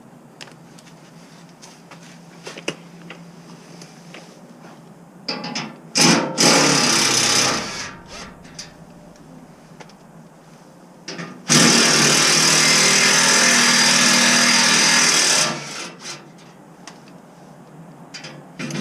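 Power tool running in two bursts, a short one about six seconds in and a longer one of about four seconds a little later, backing out the 10 mm bolts of an access panel under a truck.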